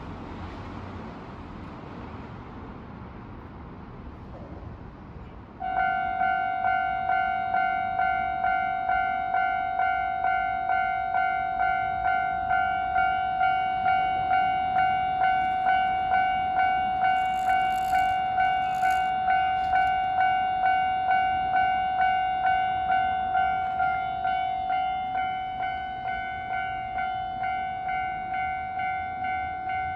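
Level crossing warning bell on JR Shikoku's Dosan Line starting suddenly about six seconds in, then ringing steadily at about two strikes a second to warn of an approaching train. Before it starts there is only a low steady rumble.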